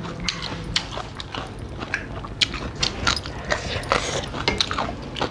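Close-up wet chewing and lip-smacking from eating rice and curry by hand, an irregular run of short clicks and smacks several times a second, picked up on a clip-on microphone.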